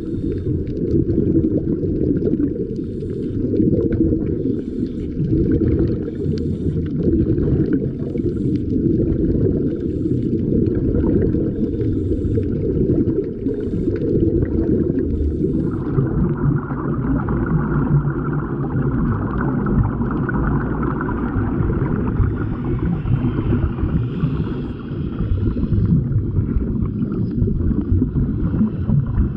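Muffled underwater rumble from a submerged camera in a waterproof housing: a steady low wash of water noise with air bubbles, which turns brighter about halfway through.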